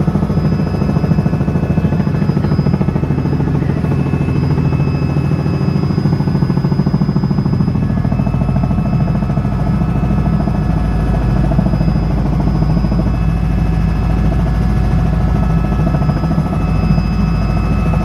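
Helicopter cabin noise: the engine and rotor running steadily and loudly, with a fast rotor beat underneath and a constant high whine above.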